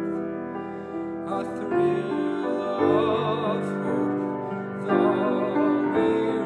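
Classical solo singing with vibrato, accompanied by piano in a slow, gentle carol.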